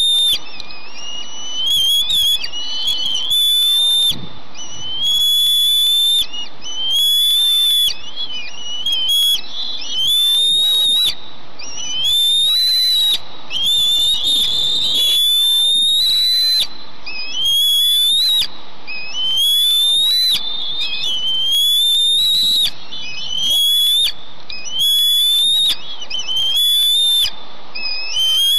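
Bald eagle eaglets begging for food: a high, thin whistled call repeated about once every two seconds, each call lasting about a second and often rising a little in pitch.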